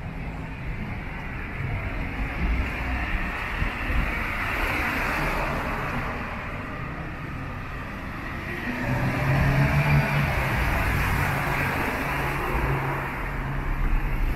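Street traffic: motor vehicles running past, their noise steady throughout. A louder, steady low engine hum comes in a little past halfway.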